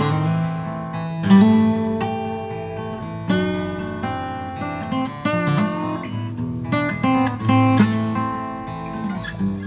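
Two overdubbed guitar parts, with acoustic guitar to the fore, playing a picked chord progression of ringing notes. Stronger strummed chords land about every one to two seconds.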